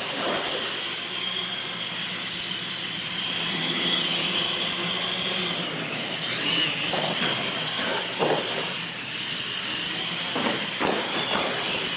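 Radio-controlled monster trucks racing across a concrete floor: a steady high whine from their electric motors and gears, with pitch glides as they speed up and slow, over tyre noise. Several sharp knocks come in the second half.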